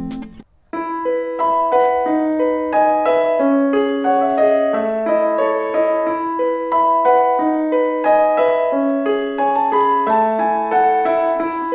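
Background music: a gentle piano or electric-piano piece of steady, evenly paced notes, starting just under a second in after a brief gap where a guitar track ends.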